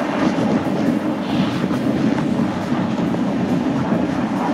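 Ford F-150 pickup driving across snow-covered lake ice: a steady, loud rumble of tires and running gear.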